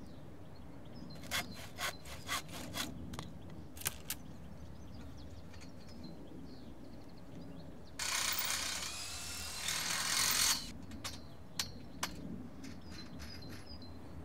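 A power drill boring into a timber door post for about two and a half seconds, its motor pitch rising slightly under load. A few sharp knocks and clicks of the post and tools being handled come before and after it.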